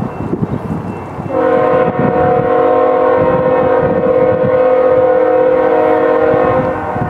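A train rumbling, then a locomotive air horn sounding one long blast that starts about a second in and stops shortly before the end.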